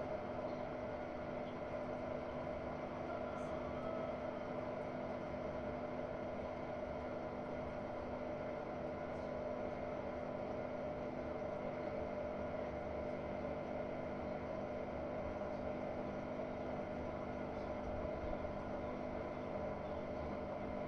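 Hotpoint-Ariston Aqualtis AQ8L 09 U washing machine running, its brushless inverter motor giving a steady whining hum that holds one pitch; it cuts off suddenly at the very end.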